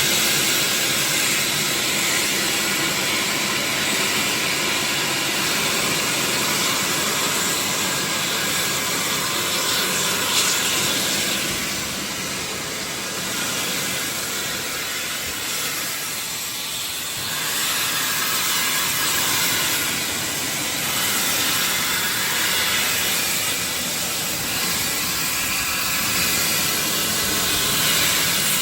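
Steam locomotive hissing: a steady, loud rush of escaping steam that swells and eases a little.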